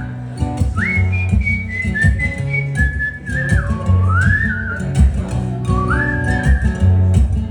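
Instrumental break of a blues-rock band: a single high lead melody with sliding, bending notes plays over a walking bass line and steady percussion.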